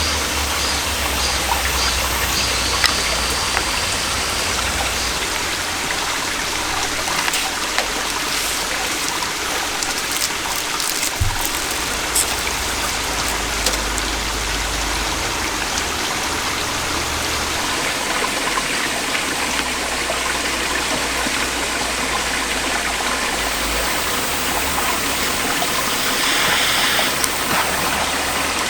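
A mountain stream rushing steadily over rocks right beside the microphone, a constant even water sound.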